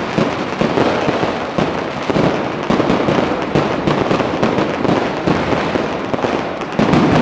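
Dense, continuous barrage of Chinese New Year firecrackers and fireworks: countless overlapping bangs and crackles with no gaps, growing louder near the end.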